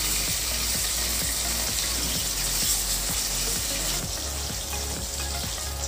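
Katla fish pieces frying in hot mustard oil in a kadai: a steady sizzle.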